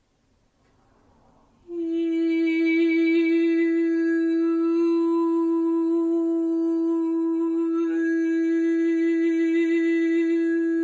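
A woman's voice toning one long held note in a sound healing session. A short breath comes first, and the note starts about a second and a half in. The pitch stays steady while the tone colour slowly shifts twice as she reshapes the vowel.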